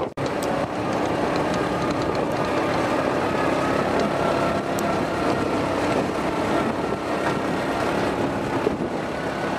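A vehicle running, with a steady engine and road noise.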